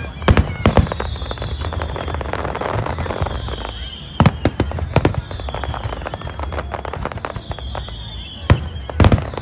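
Fireworks display: aerial shells bursting with sharp bangs, loudest twice near the start, twice around four to five seconds in and a cluster near the end, with crackling between them over a steady low rumble.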